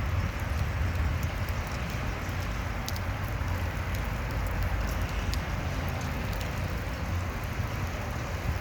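Steady hiss of rain, with a low rumble of wind on the phone's microphone and scattered faint ticks.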